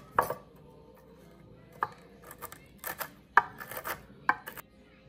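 Kitchen knife chopping crunchy caramel granola on a wooden cutting board: a dozen or so irregular, sharp strikes with short pauses between.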